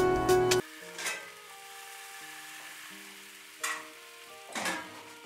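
Film soundtrack music with a drum beat cuts off abruptly about half a second in. Soft music with held notes follows, under kitchen cooking sounds: a pan sizzling on a stove, with a few short bursts of stirring and clatter.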